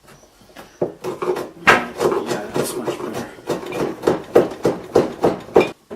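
Hand tool working a treated pine 2x4: a quick, steady run of sharp wooden strokes, about three a second, starting about a second in and stopping just before the end.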